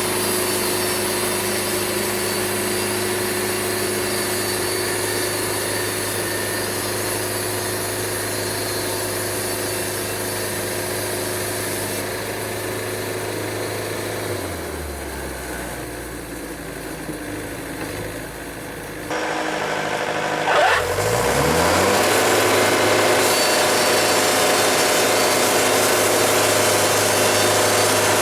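Wood-Mizer LT70 sawmill running steadily as its band saw works through yellow pine. About halfway in the engine slows to a lower pitch and the sound eases for a few seconds. It then picks up again with a rising pitch and runs steady and a little louder.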